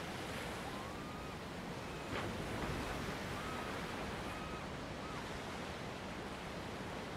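Steady wash of sea surf against rocks, with wind, swelling briefly about two seconds in. A few short, thin whistles sound over it.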